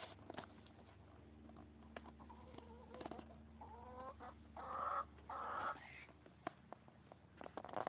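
Chickens clucking in short calls, with two louder, harsher calls about halfway through and scattered light ticks throughout.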